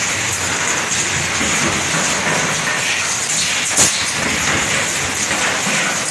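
Two-cavity PET stretch blow molding machine running with a steady hiss, and one sharp blast about four seconds in.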